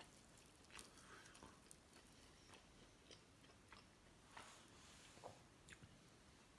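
Kimchi jeon, a Korean kimchi pancake, being torn apart by hand: faint, scattered soft crackles and ticks over a near-silent room.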